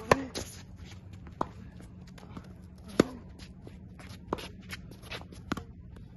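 Tennis ball struck by racquets in a baseline rally on a hard court: sharp pops roughly every one and a half seconds, the loudest about the start and about three seconds in, with fainter hits from across the court and smaller ball bounces and footsteps between.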